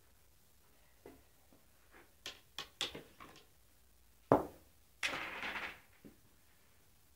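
A scatter of light knocks and clicks, then one loud sharp knock about four seconds in, followed by a rattling scrape lasting under a second and a final click.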